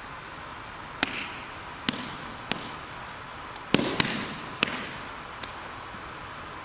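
Sharp slaps and thuds of hands, feet and body hitting a wrestling mat as an aikido partner is taken down with nikkyo and falls; about seven separate impacts, the loudest pair close together about four seconds in.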